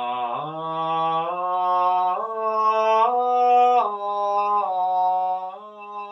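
A man singing unaccompanied, wordless held vowel notes, improvising freely. He steps from one sustained pitch to the next about once a second, climbing to a peak around three seconds in and then stepping back down.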